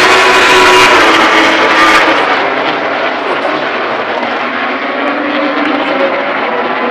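MotoGP race motorcycle engines running: loud for about two seconds, then quieter and duller, settling into a steady drone.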